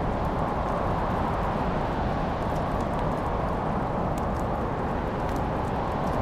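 Wood fire burning in a fireplace: a steady low rushing with a scattering of faint, sharp crackles and pops.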